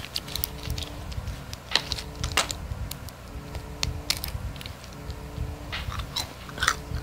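Fingernail biting: small sharp clicks of teeth on fingernails, irregularly spaced.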